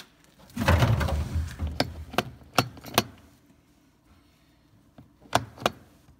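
Rustling handling noise with a low rumble, then a run of four sharp knocks and clicks about half a second apart, and two more knocks near the end.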